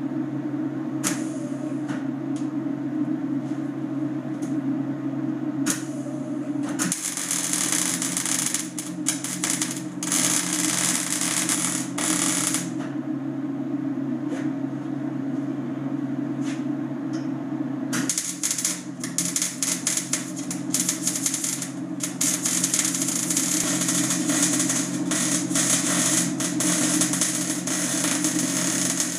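Lincoln wire-feed welder humming steadily while its arc crackles in two long runs, one starting about seven seconds in and one from about eighteen seconds on, with a few brief strikes before. The heat is set too high and the arc is burning through the steel rather than welding it.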